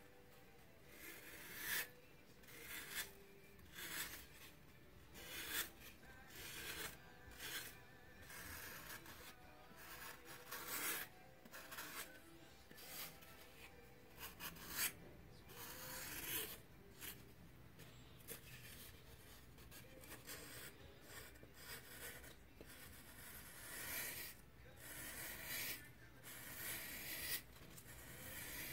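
Snap-off utility knife blade shaving a pink foam doll-leg core: a run of short scraping strokes, about one a second, as curls of foam are cut away.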